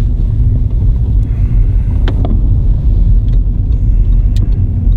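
Steady low rumble of a car's engine and tyres heard from inside the cabin, with a few faint light clicks.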